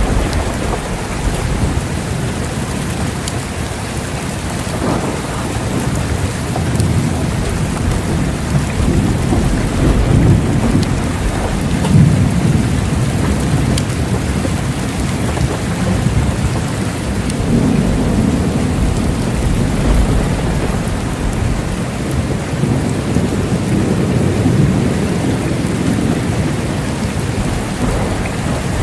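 Steady heavy rain with low, rolling thunder that swells several times, strongest about ten, seventeen and twenty-four seconds in.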